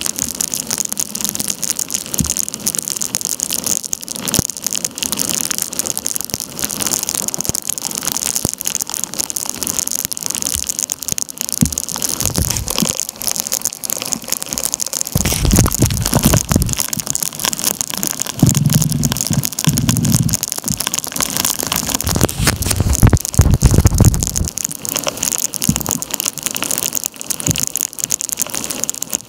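Torrential thunderstorm rain pelting the river surface and the kayak, a dense steady hiss full of fine drop impacts. Between about halfway and three-quarters through, several stretches of low buffeting noise come in, the loudest near the end of them.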